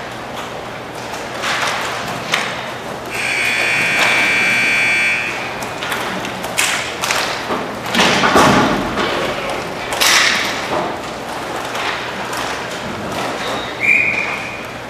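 Roller hockey play: repeated thumps and clacks of the puck and sticks against the boards and glass, the loudest bang about eight seconds in. A shrill whistle sounds for about two seconds around three seconds in, and briefly again near the end.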